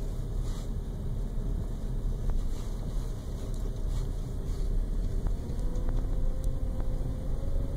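A car driving along, heard from inside it: a steady low rumble of road and engine noise, with some wind noise.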